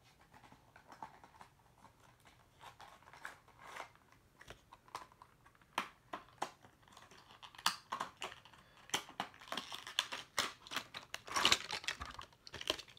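A diecast model car's box packaging being opened by hand: a string of irregular clicks, coming thicker toward the end.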